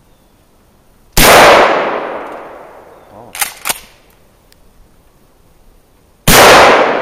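Two blasts from a Mossberg 500 12-gauge pump-action shotgun, about five seconds apart, each fading out over about two seconds. Between them comes a quick double clack as the pump is racked back and forward to chamber the next shell.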